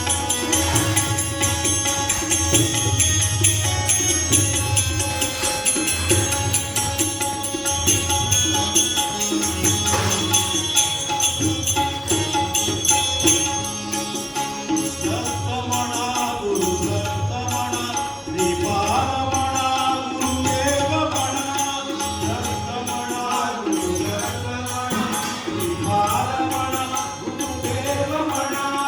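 Background music with a steady low beat and percussion. From about halfway, a melody line that bends in pitch comes in over it, in the style of devotional chant.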